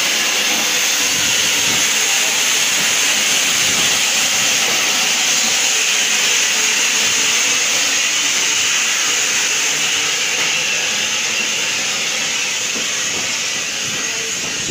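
Steam locomotive letting off steam, a loud steady hiss that eases slightly over the last few seconds.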